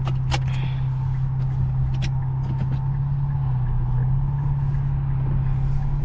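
Infiniti Q50's engine running at a steady cruise, a low even drone that dips slightly in pitch about halfway through and then climbs again. A few sharp clicks sound in the first two seconds.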